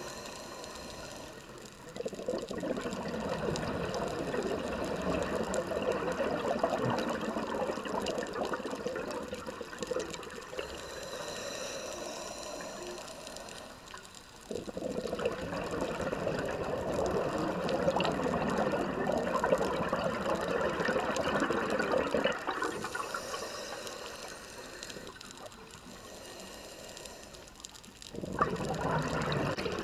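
A scuba diver's exhaled bubbles gurgling from the regulator, heard underwater in three long bursts starting about 2, 15 and 28 seconds in, with quieter hissing stretches of inhaling between them.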